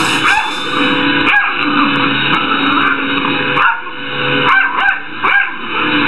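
Small dog barking at a running upright vacuum cleaner, several short high cries that bend up and down in pitch, over the vacuum motor's steady hum.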